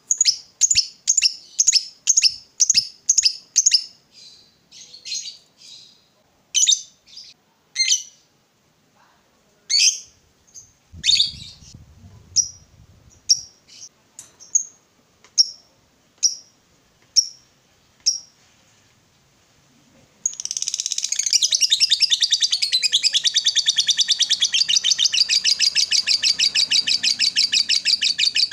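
Fischer's lovebird calling: a quick run of sharp high chirps, then single chirps about one a second, then, from about twenty seconds in, a long unbroken rapid chattering trill, the 'ngekek' that keepers prize.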